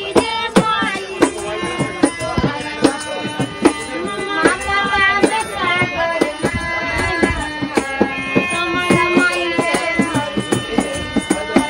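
An Indian song: a wavering, ornamented melody over a tabla-style hand-drum beat.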